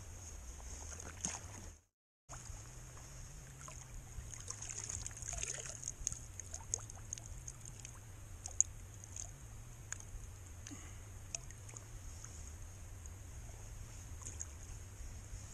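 Faint water ambience: light trickling and dripping with small scattered clicks over a low steady wind rumble on the microphone. The sound drops out completely for about half a second near the two-second mark.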